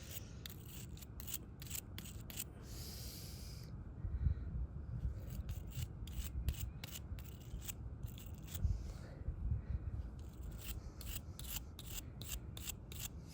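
Hand wire brush scrubbing old gunk and O-ring residue off a motorcycle's magnetic drain plug, in quick repeated rasping strokes.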